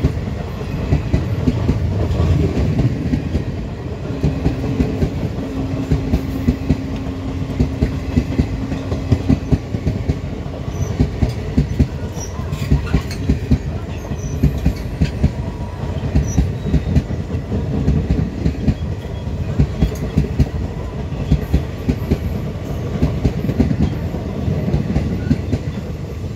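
Passenger express train running at speed, heard from on board: the wheels clatter over rail joints in a constant stream of sharp clacks. A low steady tone sounds for several seconds in the first half.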